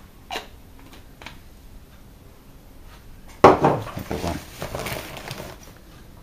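Household items handled on a kitchen worktop: two light clicks, then about three and a half seconds in a sudden knock followed by a couple of seconds of clattering and rustling as bottles and containers are moved about, a medicine bottle among them.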